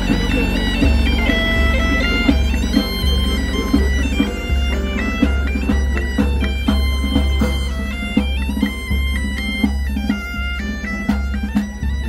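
Bagpipe (Spanish gaita) playing a lively folk tune over its steady drone, with a large bass drum beating time in regular strokes.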